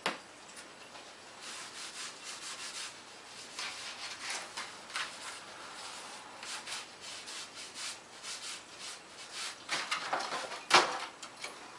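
Hands rubbing and sliding foam sheets on a tabletop: a run of short scuffs and rustles, with one sharp knock near the end.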